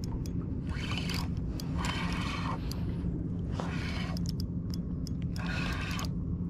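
Spinning reel being cranked in short spurts as a hooked fish is reeled in, giving repeated brief scratchy whirring over a steady low hum.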